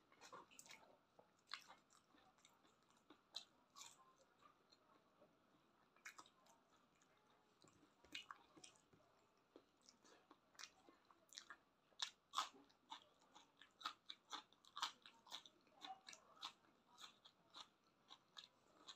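Close-up sounds of a person chewing and biting into cooked chicken feet: a run of faint, quick mouth clicks and crunches, sparse at first and coming thicker and louder from about halfway through.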